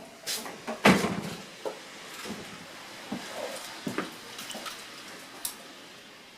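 A series of short knocks, clicks and rustles of objects being handled, the loudest about a second in.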